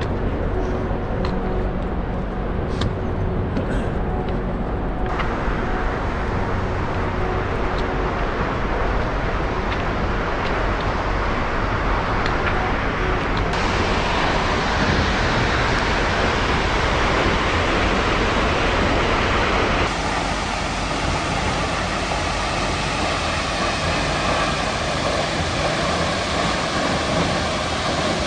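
Steady rush of a nearby waterfall: a loud, dense noise with no pauses, whose tone shifts abruptly three times where separate clips are cut together.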